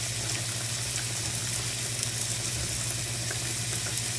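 Yak ribeye steaks sizzling on an electric indoor grill: a steady hiss with scattered small crackles and a low steady hum underneath.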